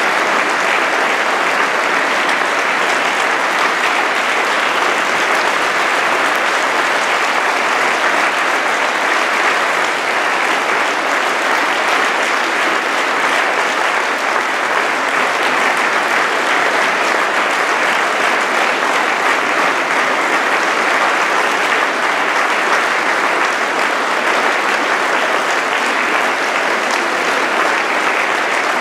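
Audience applauding, a dense, even clapping that holds steady without a break.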